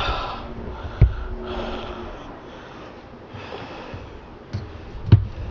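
A person breathing and sniffing hard through the nose while working, in several short puffs, with two sharp knocks of hard objects being handled, about a second in and near the end.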